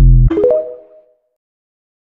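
TikTok's video end-screen jingle: a deep bass hit, then a quick run of rising synth notes that ring out and fade within about a second.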